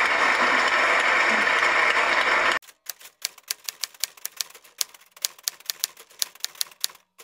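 Studio audience applauding, cut off abruptly about two and a half seconds in. Then a rapid, irregular clatter of typewriter key strikes, several a second, as a logo sound effect.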